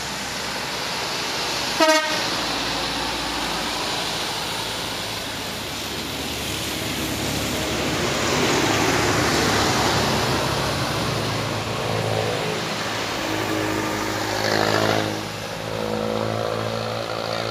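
Traffic passing on a wet road: trucks, a motorcycle and a minibus going by with engine and tyre noise. A short horn toot sounds about two seconds in.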